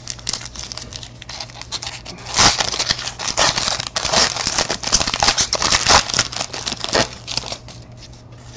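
Foil wrapper of a 2013 Panini Certified football card pack being torn open and crinkled by hand. The crinkling is loudest through the middle and dies down to a fainter rustle near the end as the cards come out.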